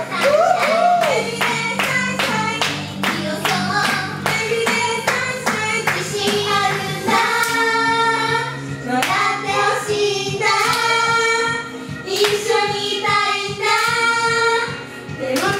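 Idol pop song performed live: young female voices sing over a backing track. A steady clapping beat runs through roughly the first half.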